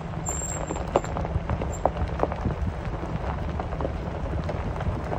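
Truck rolling down a gravel driveway, heard from inside the cab: a steady low rumble with scattered pops and crackles of gravel under the tyres.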